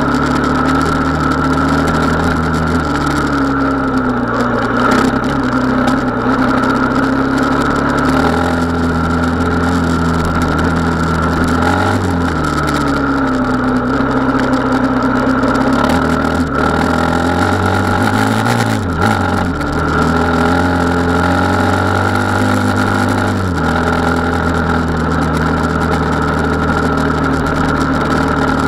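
Gas Gas Wild HP 450's engine running while riding, its pitch dropping and climbing again several times as the throttle is eased and reopened.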